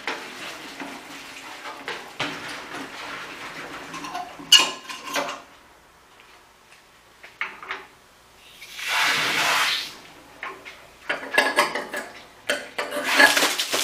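Garden hose and its fitting knocking and rattling against a steel fuel tank as it is set up to rinse the tank out, with a short hiss of water spraying about nine seconds in.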